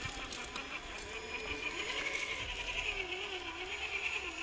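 Traxxas TRX-4 RC crawler's electric motor and gearbox whining as it creeps over rock, the pitch rising and falling with the throttle.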